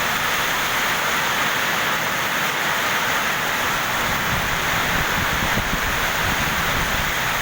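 Heavy storm rain pouring down in a steady hiss, with strong wind gusting and rumbling on the microphone, more so from about four seconds in.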